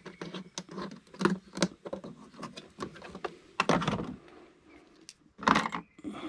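Irregular clicks, taps and rattles of small plastic engine-bay parts being handled: an electrical connector and clip being unplugged and worked loose by hand. There are a few louder knocks and scrapes near the middle and shortly before the end.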